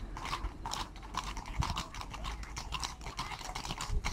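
Hooves of several ridden horses walking on an asphalt road, an irregular clatter of clip-clops.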